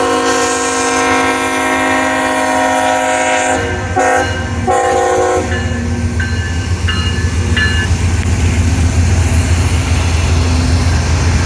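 CSX freight locomotive's multi-chime air horn sounding a held chord, then two shorter blasts. After that the low rumble of the train comes in and grows louder.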